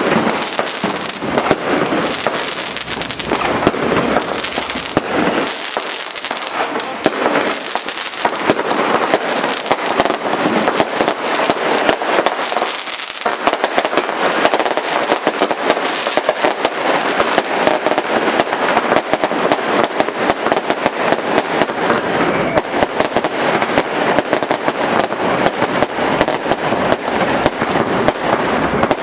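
Consumer firework cakes firing a rapid, unbroken string of shots and crackling bursts.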